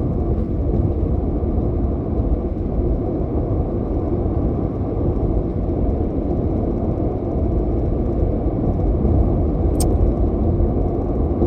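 A steady low rumbling noise, with one brief sharp click about ten seconds in.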